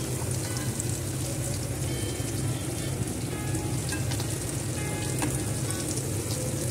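Chickpea kababs deep-frying in hot oil, a steady sizzle with small scattered crackles, over a steady low hum.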